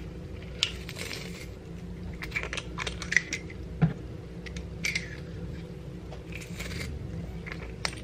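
Metal garlic press crushing garlic cloves: scattered short clicks and metallic taps as the handles are squeezed, over a low steady hum.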